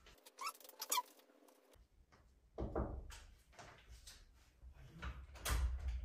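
Two short rising squeaks about half a second apart, followed by slipper footsteps on a tiled floor and a door handle being worked near the end.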